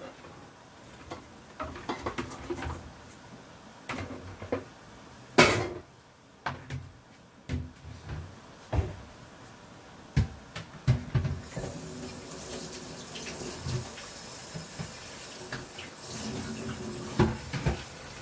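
Kitchen clatter of pots and utensils, scattered knocks with one sharp knock about five seconds in; from about eleven seconds in, a tap runs steadily into a sink.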